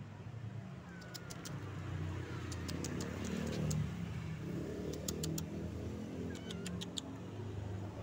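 A motor vehicle's engine rumble that swells a couple of seconds in and eases off, with small clusters of short, sharp high clicks over it.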